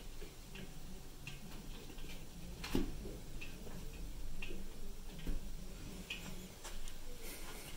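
Light, irregular clicks and taps, about one or two a second, with one louder knock about three seconds in: cats' paws and claws tapping on a hard plastic paddling pool and a glass vase.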